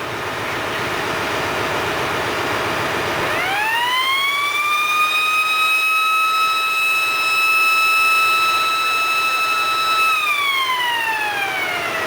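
Ship's engine-room CO2 discharge alarm siren, the warning to vacate the engine room before fire-extinguishing gas is released. A rushing noise builds first, then about three seconds in a wailing tone rises in pitch, holds steady for about five seconds, and near the end slides steadily down as the siren winds down.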